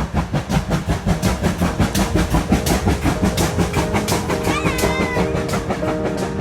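Backing music with a fast, steady drum beat; held piano notes join a little after halfway.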